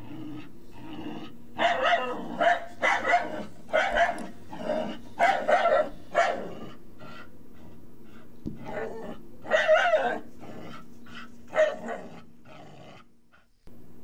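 A dog barking repeatedly, in uneven clusters of short barks with brief pauses, fading out near the end.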